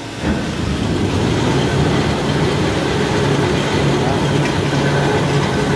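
Three-ply toilet-paper rewinding machine running as the web feeds off the jumbo parent rolls over its rollers: a loud, steady mechanical noise with a low hum, coming in sharply just after the start.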